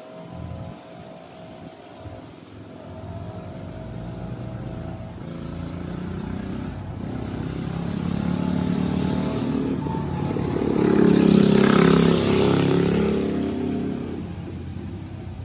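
Coleman CT100U mini bike's small single-cylinder four-stroke engine, fitted with an aftermarket AR Sport exhaust, running under throttle as the bike rides closer, passes loudest about three-quarters of the way through, then moves away and fades.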